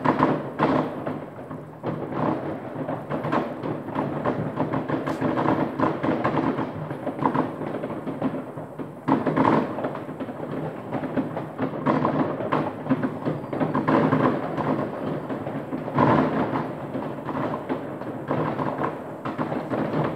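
Many fireworks going off at once across a town: a dense, continuous mix of distant bangs and crackling, with louder bangs now and then.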